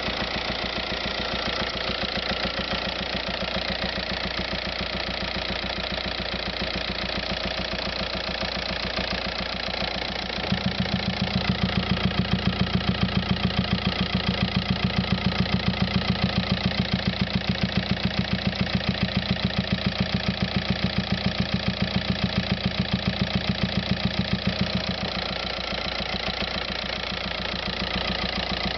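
Volkswagen Passat TDI diesel engine idling. About ten seconds in, a louder, low, rapidly pulsing throb cuts in abruptly; it holds steady for about fifteen seconds and then cuts out just as abruptly. This is the unexplained engine noise the owner is recording.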